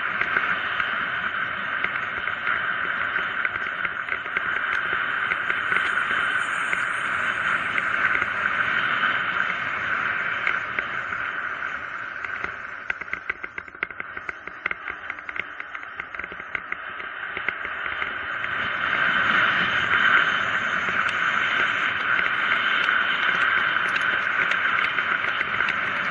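Steady rushing wind and tyre noise on a mountain bike's camera during a fast descent on asphalt. About halfway through it drops as the bike slows, and a rapid ticking from the rear freewheel coasting comes through before the rush builds again.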